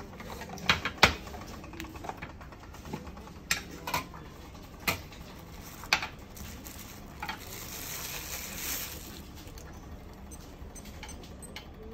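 Scattered small clicks and knocks of watch boxes and packaging being handled during an unboxing, with a brief rustling about eight seconds in.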